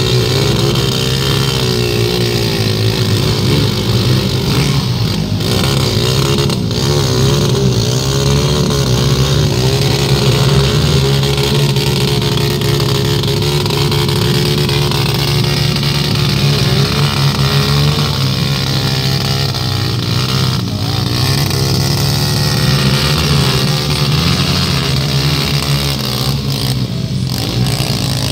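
Two or more dirt bike engines revving up and down without a break as the bikes labour up a deep mud climb, their pitch rising and falling with the throttle.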